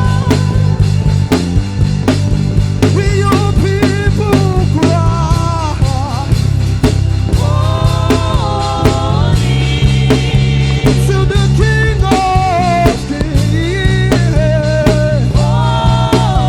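Gospel worship band playing between sung lines: a steady drumbeat over a sustained bass, with a lead melody sliding between notes.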